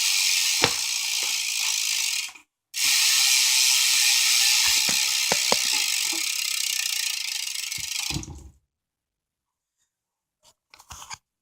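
BMX rear hub with a 9-tooth driver freewheeling as the back wheel spins: its pawls click so fast that they make a really loud, dense buzz. There are two spins with a short break about two and a half seconds in, and the second runs for about six seconds before stopping.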